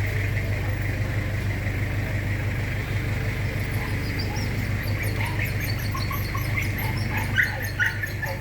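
Toyota 2C four-cylinder diesel engine idling steadily after a cylinder head replacement and injection pump retiming. Birds chirp over it from about halfway through.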